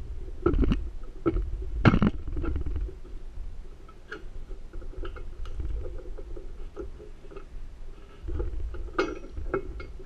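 Muffled metal clanks as a padlock is set into a pair of bolt cutters' jaws, then a low rumbling strain and scraping as the cutters are squeezed hard on the lock, with a few sharp knocks along the way.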